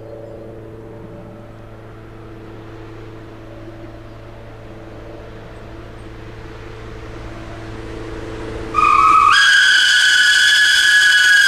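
SNCF 241P 17 steam locomotive approaching at speed, a low rumble growing slowly louder. About nine seconds in its whistle blows loud and long, starting at a lower pitch and stepping up to a higher, held note half a second later.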